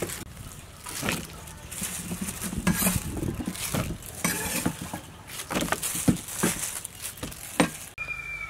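Cut taro root chunks being handled in a plastic bowl of water: irregular knocks and clatter with splashing.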